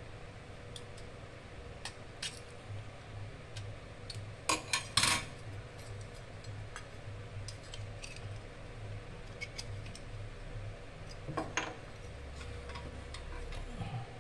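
Prosthetic scissors cutting the thin aluminium flange of a dental stock tray: a few sharp metallic snips and clicks, loudest in a quick cluster about four to five seconds in. A metallic clink comes near eleven seconds.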